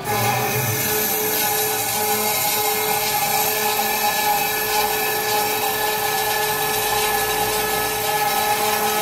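HSS circular cold saw (YT315-Y, hydraulic feed) running at its high-speed setting and cutting through a round metal pipe, with lubricant sprayed on the blade. It comes in suddenly at the start and holds as a steady whine of several even tones over a dense metallic hiss.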